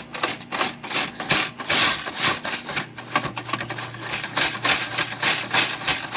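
Stiff brush wet with denatured alcohol scrubbing the plastic key tops of a Royal Futura 800 typewriter in quick back-and-forth strokes, about three to four a second, working the white crud off the keys.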